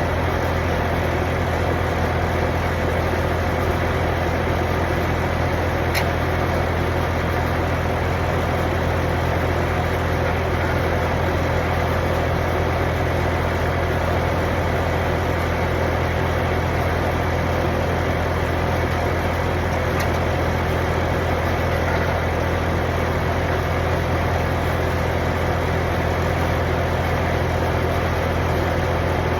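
An engine running steadily at idle, a constant low hum with no change in speed, with a faint tick or two.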